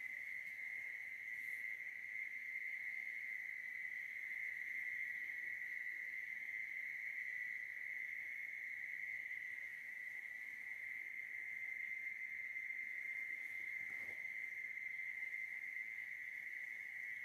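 Insects trilling steadily at one high pitch, without a break.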